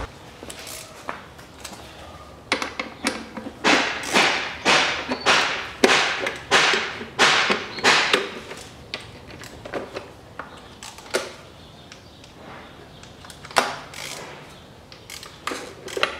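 Ratchet wrench clicking in a quick series of about nine rasping strokes while undoing M6 bolts from plastic timing-belt covers, followed by scattered clicks and knocks of the tool and bolts.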